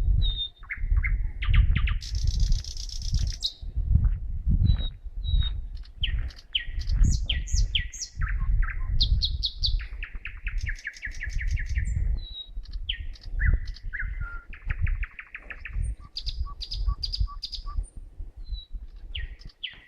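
A single songbird singing a long, varied song of repeated note series, buzzy rattles and short whistles, which the uploader tentatively takes for a thrush nightingale. A low rumble runs underneath.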